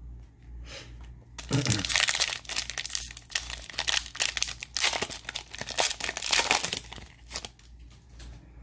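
A plastic trading-card pack wrapper being torn open and crinkled by hand: several seconds of dense tearing and crinkling that starts about a second and a half in and dies away near the end.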